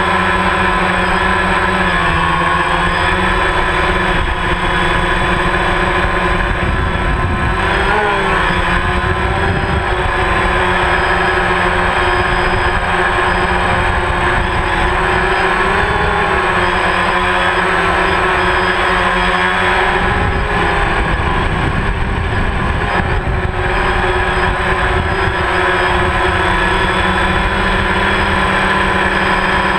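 DJI Phantom quadcopter's four electric motors and propellers whining steadily, the whole set of tones wavering in pitch now and then as the drone manoeuvres. It is heard up close through a GoPro riding on the drone in its hard case.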